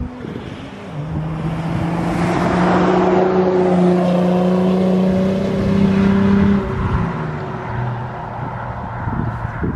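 Y61 Nissan Patrol dual cab with a turbocharged Ford Barra inline-six conversion accelerating through a bend and driving past, engine running hard. Its engine note drops in pitch and eases off about two-thirds of the way through as it moves away.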